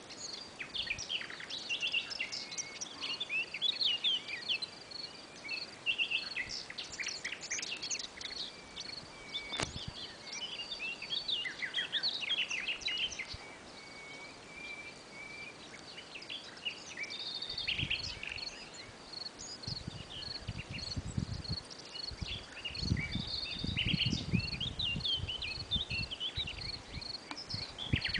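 Several wild birds singing and calling in short chirps and trills, over an insect chirping in a steady, even, high pulse. From a little past halfway through, a low rumble comes and goes underneath.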